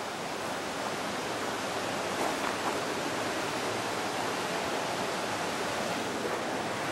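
Steady, even rushing noise with no separate events.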